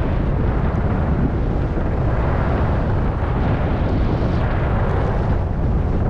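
Wind rushing over the microphone of a camera carried by a skier going downhill, a steady low rumble, with the hiss of skis running on groomed corduroy snow.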